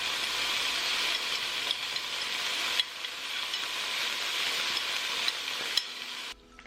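Meat, onion and garlic sizzling steadily in hot olive oil in a frying pan, with a few light clicks. The sizzle cuts off suddenly near the end.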